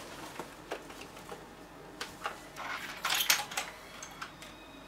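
Scattered light clicks, then a short clatter about three seconds in as a desktop computer's CD-ROM tray closes with a software disc in it.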